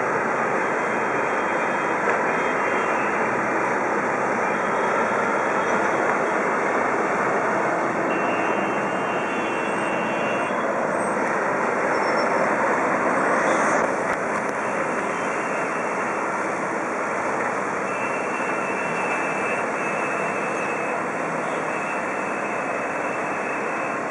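Steady, dense noise of busy city road traffic, swelling a little and then dropping suddenly about halfway through.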